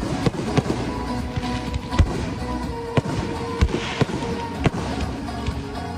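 Fireworks going off in a display: about a dozen sharp bangs at irregular intervals, with a short hissing crackle about four seconds in, over music playing.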